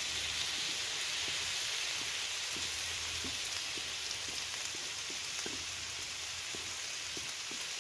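Diced potatoes frying in a pan, a steady sizzle with scattered small pops, as chopped shallots, garlic, chilli and tomato are tipped in on top.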